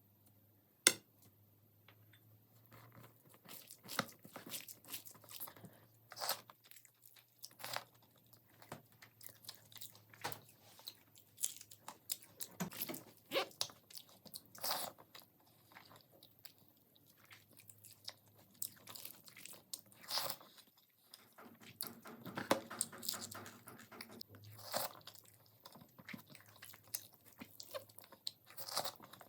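Close-miked eating: crunchy food being bitten and chewed, with irregular crisp crunches throughout and one sharp bite about a second in.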